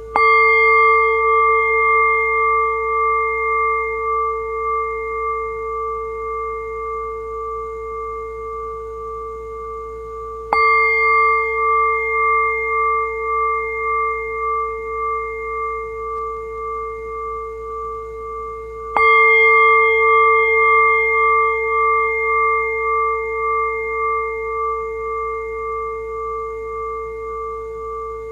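A bell struck three times, roughly ten seconds apart. Each stroke rings on in several steady tones that fade slowly, with a pulsing beat in one of the middle tones.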